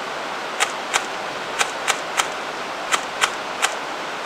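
M41 airsoft gun fired in single shots: eight sharp cracks, some in quick pairs, over the steady rush of a river.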